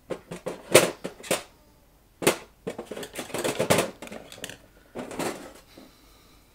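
Handling noise from a vintage wirewound rheostat: its metal terminals, bracket and wiper parts click, scrape and rattle in several short clusters as the unit is turned in the hand against the bench.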